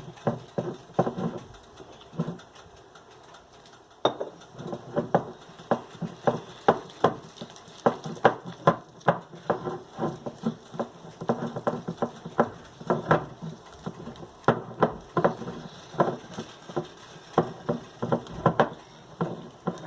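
Gram flour being mixed with a little water into a thick batter in a bowl: irregular clicks and taps of a spoon against the bowl, with soft wet sticky sounds. Quieter for a moment near the start, then steady tapping at about two to three strokes a second.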